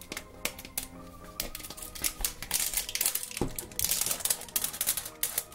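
Clear plastic wrap and a label crackling and crinkling as they are peeled off a hard plastic egg, with quick irregular clicks of fingernails on the plastic. The crackling grows denser about two seconds in.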